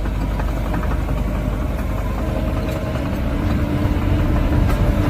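Diesel engine of a DEVELON DD100 bulldozer running steadily. A held tone joins it about three and a half seconds in.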